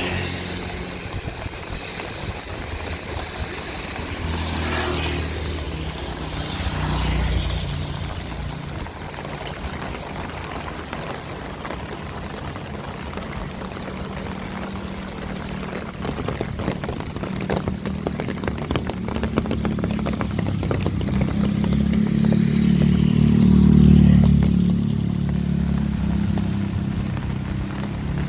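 Motor vehicles passing on a wet road in heavy rain. An engine rumble builds to its loudest a few seconds before the end and then fades, over the steady hiss of rain.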